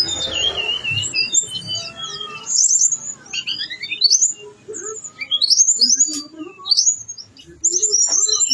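A caged tledekan gunung songbird singing hard in a fast, varied stream of high chirps, quick rising whistles and trills, with brief pauses about a third of the way in and near the end. The song is packed with learned phrases copied from other birds.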